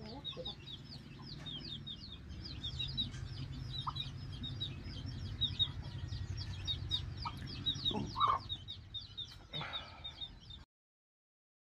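A flock of free-ranging chickens: constant rapid high chirping and peeping, over a low steady hum, with a louder cluck about eight seconds in and a short rustle soon after.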